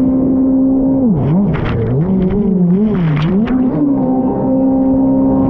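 Jet ski engine running at steady high revs, then the revs drop and rise unevenly for a few seconds as the throttle is worked, with bursts of water splashing, before settling back to steady high revs.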